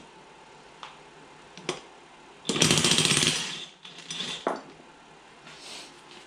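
DeWalt cordless impact wrench with an 18 mm socket hammering for about a second to loosen a nut on a tractor hitch's draft arm. A few short metallic clicks come before and after it.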